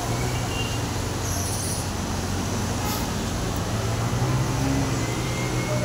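Vehicles wading through floodwater: a steady low engine hum under a constant hiss of traffic noise.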